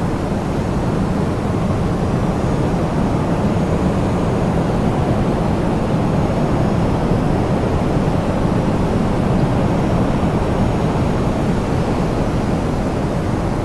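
Strong storm wind blowing steadily: a deep, even rushing noise with most of its weight in the low end.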